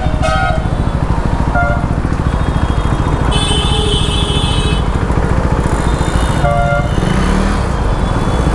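KTM Duke 390's single-cylinder engine running on the move through traffic, with vehicle horns honking around it: short beeps near the start, at about one and a half seconds and near the end, and a longer, higher-pitched horn from about three to five seconds in.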